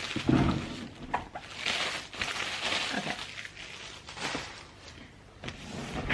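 Plastic shrink wrap crinkling and tearing in irregular bursts as it is pulled off a boxed laptop.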